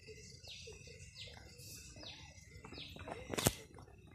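A bird calling over and over, each call a short, high note falling in pitch, about every two-thirds of a second. A single sharp click about three and a half seconds in.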